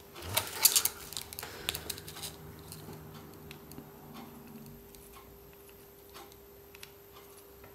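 Light clicks and taps from fingers and a soldering iron tip working on a small tail rotor motor and its wires during desoldering. The clicks come mostly in the first two and a half seconds, with fainter scattered ticks after, over a faint steady hum.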